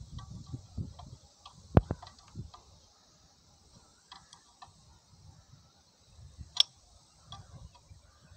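Scattered metallic clicks and light knocks from hands working on a stopped diesel engine's fuel pump and fittings. Two sharp clicks stand out, one about two seconds in and another later on, with handling noise between them.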